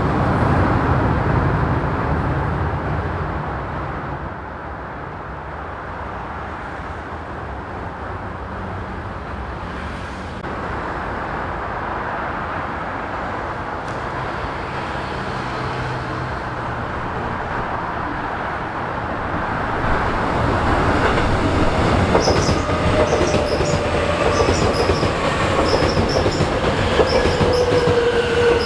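Seoul subway Line 2 electric train rumbling on the rails. The rumble fades over the first few seconds, stays steady and lower, then grows again from about twenty seconds in as a train comes in with wheel and brake squeal, a train braking into the station.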